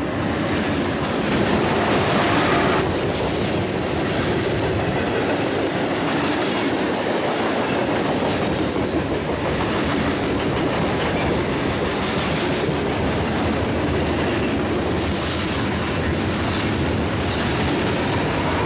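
Freight train cars rolling past close by: a steady rumble of steel wheels on rail with clickety-clack as the wheels cross rail joints.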